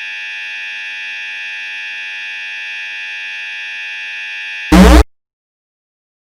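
A steady, harsh electronic buzzer tone that runs without change for over four seconds, then a very loud, short blast of distorted noise about 4.7 seconds in, cut off sharply into silence.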